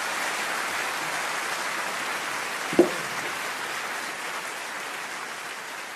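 Steady hiss with a single short clank about three seconds in, from a flat steel pry bar knocking against wooden floor joists.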